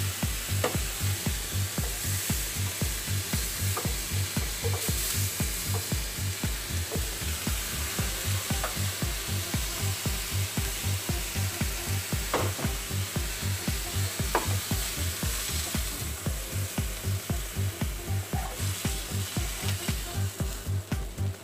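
Chicken breasts and red onion sizzling in a frying pan, with a few sharp clicks of a wooden spatula against the pan; the sizzle dies down in the last few seconds. Under it runs background music with a steady bass beat.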